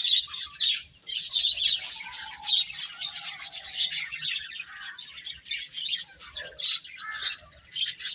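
A group of baby chicks peeping, many short high chirps overlapping almost without a break, with a lower drawn-out note about two seconds in.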